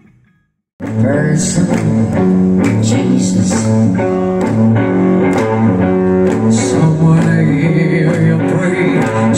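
A live blues band plays electric guitar over bass and drums. The music starts abruptly just under a second in, after a brief silence.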